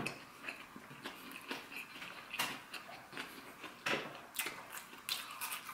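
Close-miked chewing of a mini cheeseburger slider: irregular soft mouth clicks and smacks, a few louder ones in the second half.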